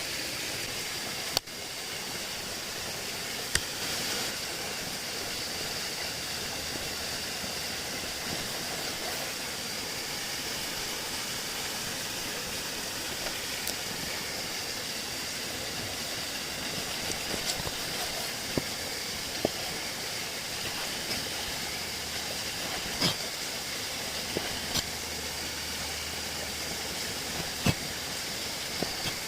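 Food frying in hot oil: a steady sizzle with a few sharp pops and crackles scattered through it.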